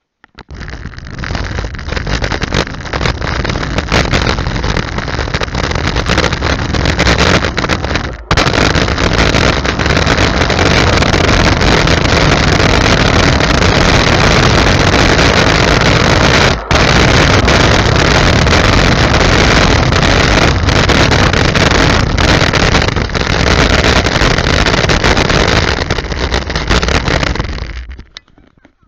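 Steady, loud rushing noise of wind on a small camera's microphone and scooter wheels rolling over asphalt while riding, broken by two very brief drop-outs about eight seconds in and about halfway through, and fading out near the end.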